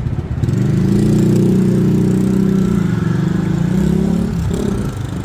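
A motor vehicle engine running close by for about four seconds at a fairly steady pitch, swelling in and then fading.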